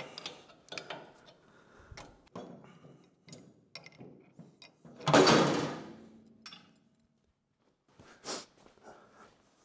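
Steel steering-column parts and hand tools being handled while the steering box is undone: light clicks and rattles, one loud clank about five seconds in that rings out for about a second, and another knock near the end.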